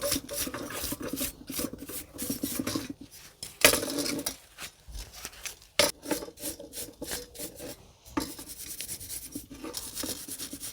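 A brush scrubbing the faded, rusty metal top of a bird bath in quick repeated strokes, with a couple of louder knocks partway through.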